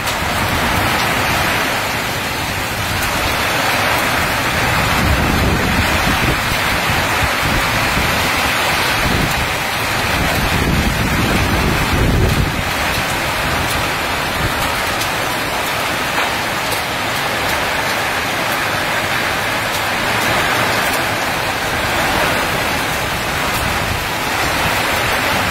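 Heavy rain pouring down in a nor'wester (kalbaisakhi) storm, a dense steady hiss. Low rumbling swells of wind or thunder rise around four seconds in and again near the middle.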